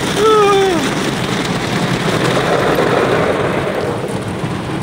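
Car-wash water jets spraying on the windshield and body, heard from inside the car as a loud, steady rushing noise like heavy rain. A short high voice exclaims at the start, with the pitch falling.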